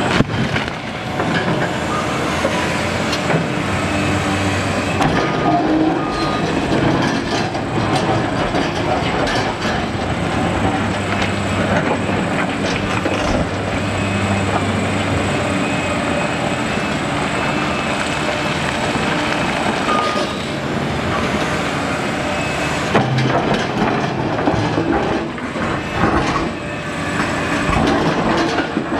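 Liebherr R976 crawler excavator at work. Its diesel engine runs steadily under load while the steel bucket scrapes and clatters through rock and earth, with scattered knocks of stone.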